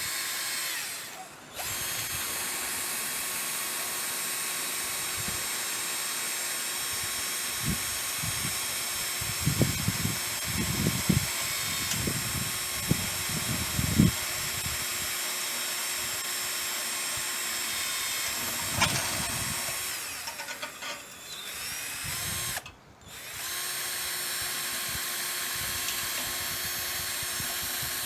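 Battery-powered Ryobi drill running at steady speed with a high whine, stopping and restarting twice. Irregular knocks are heard with it for several seconds in the middle.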